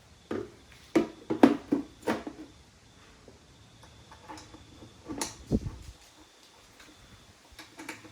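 Knocks and clatter of the trimmed dirt-bike fuel tank being handled and fitted onto the frame: a quick run of sharp knocks in the first couple of seconds, a heavier knock with a low thud about five seconds in, and a few light taps near the end.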